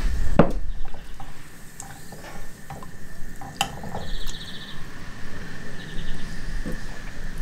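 Metal spoon stirring cherry jam and cola in a stainless steel saucepan: soft liquid sloshing, with occasional clinks of the spoon against the pan.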